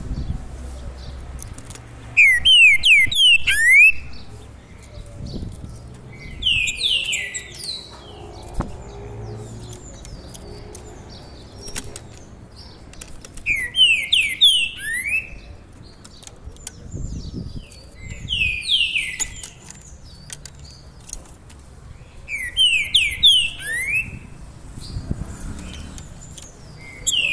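Caged all-black songbird singing: short phrases of loud, quick whistled notes sweeping up and down, repeated every four to five seconds, six phrases in all.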